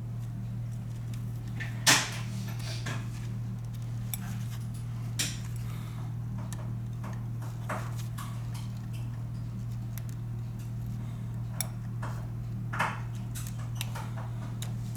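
Small metal repair tools clicking and tapping against the phone's parts and the workbench, the loudest click about two seconds in and others scattered throughout, over a steady low electrical hum.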